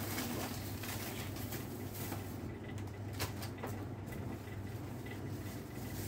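Shop room tone: a steady low hum, with a few short rustles and clicks as goods and plastic bags are handled at the counter.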